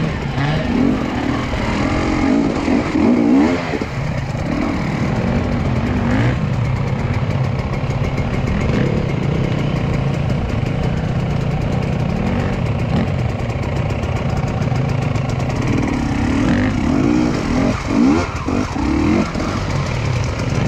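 Enduro dirt bike engines running over rough ground, with bursts of revving as the throttle is opened and closed in the first few seconds and again near the end, over a steadier lower engine note.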